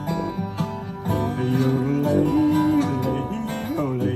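Acoustic country-blues band playing an instrumental fill between sung lines: acoustic guitar with sliding, bending melody notes over a steady low sousaphone bass.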